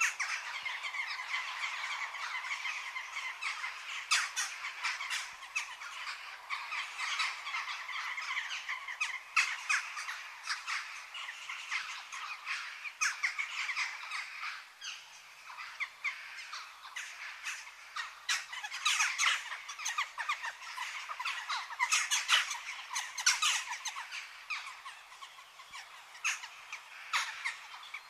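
A dense chorus of many birds calling at once, thick with short, sharp chirps and harsher squawking calls, easing slightly near the end.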